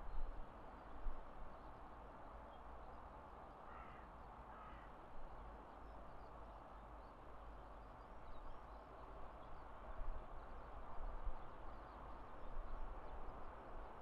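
Outdoor evening ambience: a steady hiss of distant background noise with occasional low rumbles, and a bird calling twice, about four seconds in.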